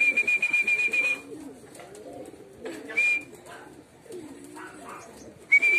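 A trilling whistle blown in three blasts, a long one at the start, a short one about three seconds in and another near the end, calling homing pigeons down into the loft. Pigeons coo low underneath.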